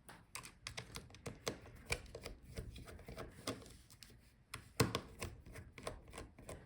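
Irregular light clicks and taps of a screwdriver and small screws while the hinge screws are taken out of a laptop, with one louder knock about five seconds in.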